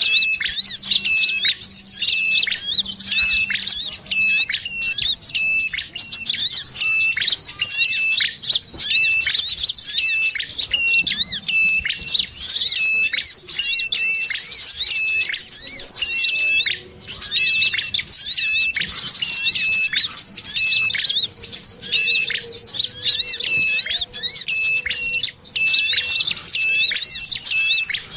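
Bird-lure recording: dense, high sogon chattering layered with the calls of an ashy tailorbird (red-headed prenjak) and a brown-throated sunbird, with a short note repeated about every half second. It plays on without a break, with brief gaps around six, seventeen and twenty-five seconds in.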